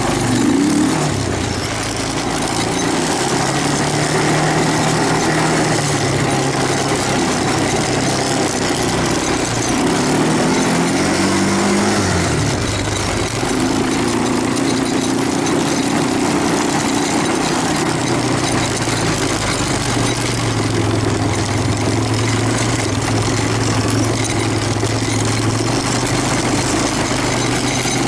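Honda Recon 250 ATV's single-cylinder four-stroke engine running while the quad is ridden. It revs up and drops back twice, near the start and about ten seconds in, and runs steadily in between, over a steady rush of wind and tyre noise.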